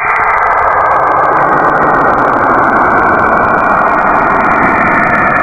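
A space recording converted into audible sound: a loud, steady, dense noise with faint held tones in it. It cuts in abruptly, without any distinct beats or pitch changes.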